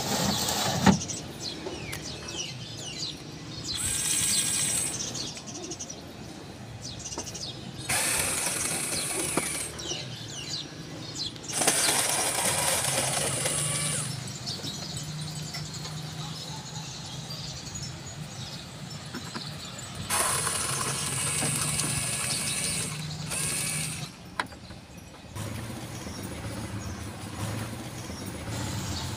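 Cordless drill-driver whirring in about six short bursts of one to three seconds, backing screws out of a plastic air-cooler housing, with a sharp click about a second in.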